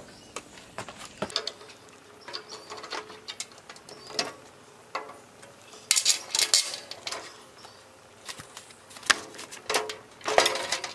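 Steel parts of a charcoal smoker clicking and clanking as bolts are worked by hand through the firebox wall and leg bracket: scattered small metal knocks, busiest about six seconds in and again near the end.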